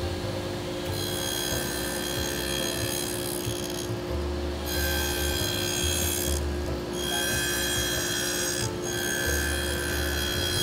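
Table saw running and crosscutting quarter-inch walnut strips. A higher whine comes and goes about four times as the blade cuts through the wood, over the steady hum of the saw, with music underneath.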